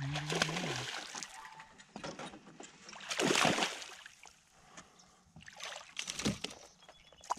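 Largemouth bass thrashing and splashing at the water's surface, hooked on a topwater lure, in a few separate bursts. The biggest splash comes about halfway through, with more a couple of seconds later as the fish is drawn toward the boat.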